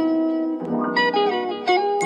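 Background music with a plucked-string melody, its notes changing every few tenths of a second.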